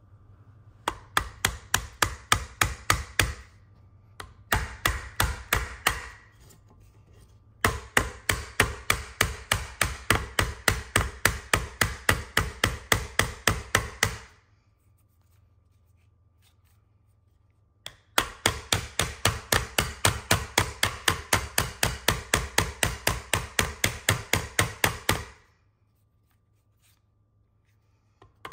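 A nail is being hammered into a wooden block with the side of a pistol-mounted Lead & Steel Pandora red dot sight, as a torture test of the optic's housing. The metal-on-metal strikes come about four a second, in four runs separated by pauses, the longest run lasting about six seconds.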